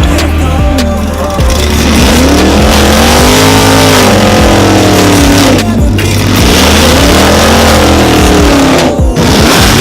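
A car driven hard, its tyres squealing and its pitch sweeping up and down again and again, over a steady low drone.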